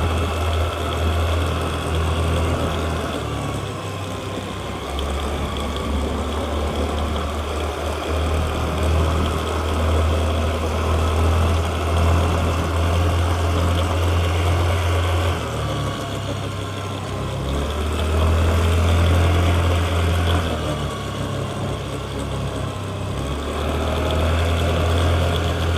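Honda Activa 125 scooter's single-cylinder engine idling steadily, its pitch dipping and rising a few times, on a scooter whose owner complains of a noise from the engine.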